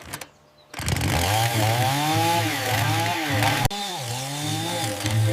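Chainsaw starting up about a second in and running hard, its engine pitch rising and falling as it revs, with a brief cut-out near the middle.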